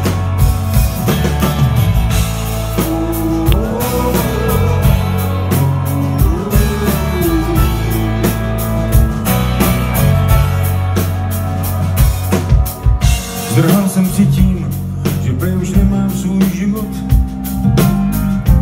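Live rock band playing the opening of a song: drum kit, bass, and electric and acoustic guitars, heard from the audience.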